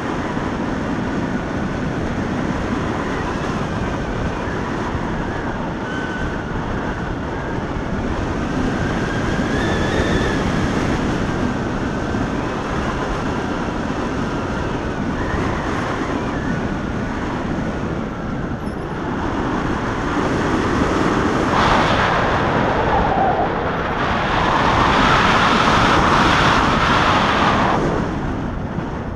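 Wind rushing over the microphone during a speedflying flight, a steady loud rush with a faint wavering whistle in the first half. The rush grows louder from about two-thirds of the way in, then eases off just before the end.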